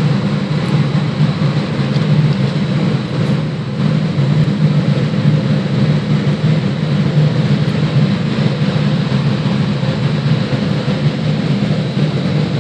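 Heavy crane's engine running at a steady speed: a continuous low drone with a faint high whine above it.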